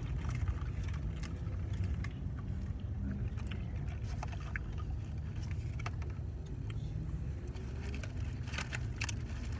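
Steady low rumble inside a parked car's cabin, typical of the engine idling. Scattered small clicks and rustles of food being handled come over it, more of them near the end.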